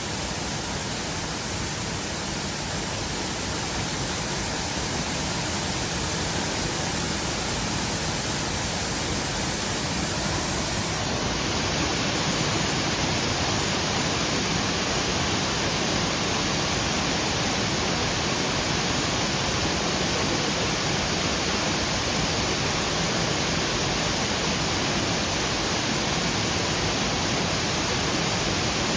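Waterfall's steady rush of falling water, growing a little brighter and louder about eleven seconds in.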